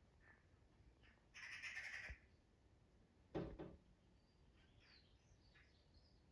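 Faint Eurasian magpie chattering through a closed window, a short harsh burst about a second and a half in. Around the middle comes a quick cluster of three knocks, the loudest sound, followed by faint chirps from small birds.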